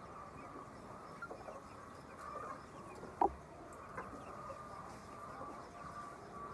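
A flock of chickens clucking and chattering together, with one louder short call about three seconds in.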